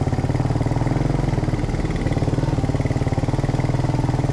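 A vehicle's engine running at a steady speed, its firing pulses even throughout.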